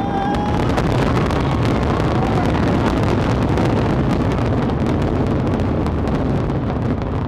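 Fireworks grand finale: aerial shells bursting in rapid, overlapping succession, merging into a continuous rumble laced with crackling.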